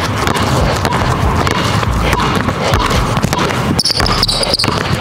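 Two basketballs dribbled rapidly on a hardwood gym floor, a fast, unbroken run of bounces. Near the end, high sneaker squeaks on the hardwood join in.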